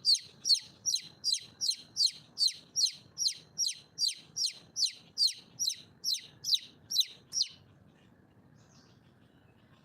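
Female red junglefowl (wild hen) calling for a mate: a fast, even series of high notes, each sliding down in pitch, about two and a half a second, stopping about seven and a half seconds in.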